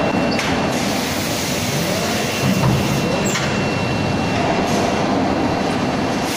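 Steady din of an automatic wheel-forging line running on the shop floor: a dense mechanical rumble with a thin, steady high whine that fades about three seconds in.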